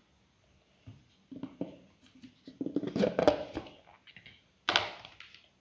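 Metal slotted spoon mashing boiled potatoes on a plate: soft squishing and scraping in irregular strokes, busiest about three seconds in, with a sharp tap of the spoon on the plate near the end.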